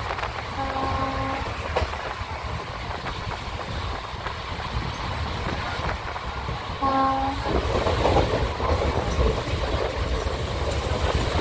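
Steady rumble and clatter of a moving train heard from a coach window, with a locomotive horn sounding two short blasts, about a second in and again some six seconds later.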